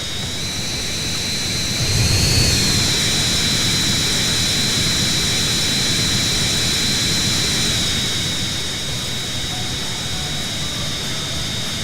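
Jet engines of an Airbus A320-200 airliner running: a steady rush with a high-pitched whine, growing louder about two seconds in and easing off again after about eight seconds.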